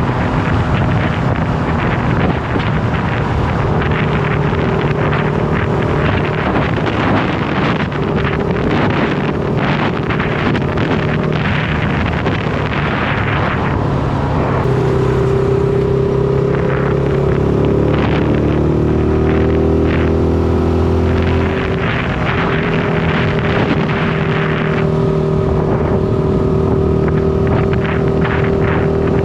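Shineray SBM 250S motorcycle engine running on the road, with wind rushing over the microphone. About halfway through, the engine note rises and falls for several seconds as the revs change, then settles again.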